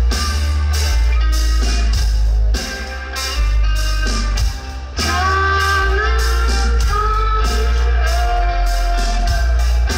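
Live rock band playing loud, with electric guitar, bass and drums and a singing voice. The loudness dips briefly twice in the first half.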